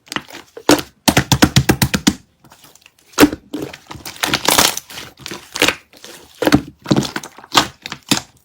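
Slime being squeezed and pressed by hand, giving sharp clicks and pops: a fast run of about ten clicks a second near the start, then separate louder pops and short crackles.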